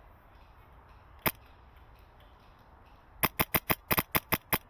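Wolverine MTW HPA airsoft rifle with a mock suppressor firing: a single sharp shot about a second in, then a rapid string of about nine shots, roughly six a second, near the end.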